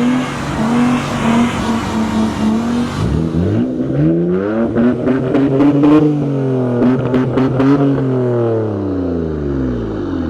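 A car engine revving: it climbs and holds briefly, drops, then runs up and back down in a long swell, with a string of sharp cracks around its peak.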